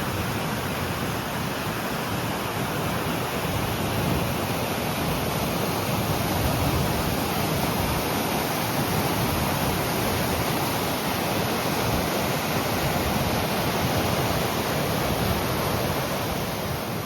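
Steady roar of the Stäubifall waterfall, water falling and churning without a break.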